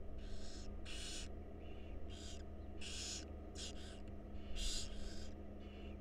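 Barn owl nestlings giving their begging calls: a series of short, raspy hisses, about one or two a second, over a steady low hum.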